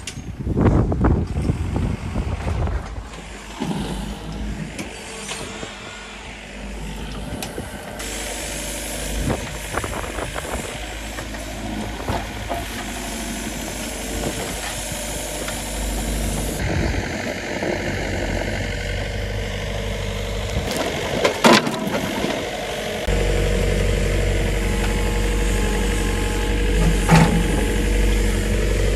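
Mini excavator's diesel engine running while it digs trenches, heard in several spliced clips, with sharp knocks about two-thirds of the way through and again near the end.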